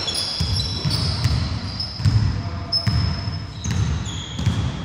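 Basketball bouncing on a wooden gym floor, thumping roughly twice a second, with short high squeaks of sneakers on the wood.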